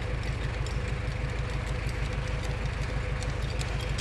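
A heavy engine running steadily at idle, with a fast, even low pulsing and scattered light ticks.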